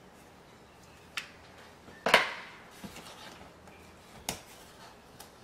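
Handling noises from a hand tool on corrugated cardboard: three short sharp clicks and knocks, the loudest about two seconds in.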